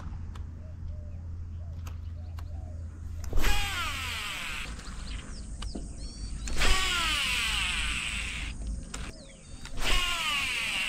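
Baitcasting reel whirring three times, a few seconds apart, as the spool spins out on casts. Each whir starts suddenly and falls in pitch as the spool slows.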